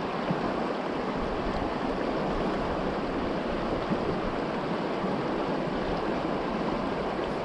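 Mountain creek rushing steadily over rocks and shallow riffles: a continuous even rush of water.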